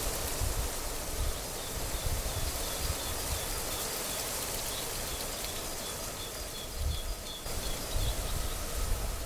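Wind gusting on the microphone in uneven low rumbles, stronger at the start and again around seven and nine seconds in, over a steady hiss of wind through grass and leaves. Faint, rapid high chirping runs beneath it.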